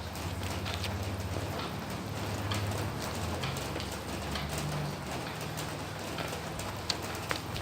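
Steady rain falling, with many individual drops ticking sharply over the hiss and a faint low hum underneath.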